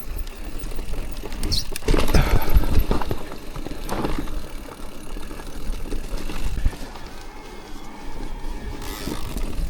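Electric mountain bike on Michelin Wild 2.6 tyres riding down a wet, rooty dirt trail: tyre noise on the dirt with the bike rattling and knocking over roots. The heaviest knocks come about two, three and four seconds in, with another near seven seconds.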